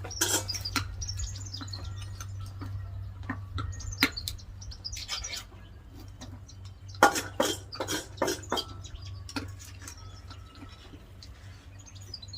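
Birds chirping with short, falling high calls over a low steady hum, with scattered sharp knocks and clatter, the loudest about seven seconds in.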